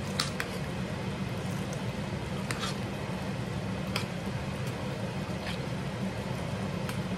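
Spoon stirring thick, creamy macaroni and cheese in a stainless steel pan: soft wet squishing with a few light clicks of the spoon against the pan, over a steady low hum.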